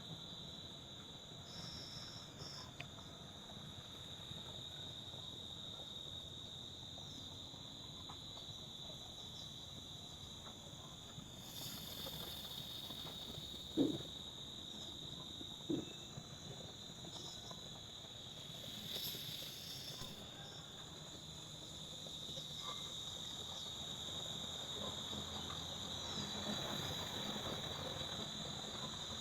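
Faint, steady insect chorus of crickets trilling: a continuous high-pitched tone. Two short low calls stand out near the middle.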